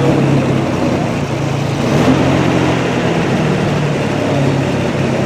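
Car engine running steadily at idle.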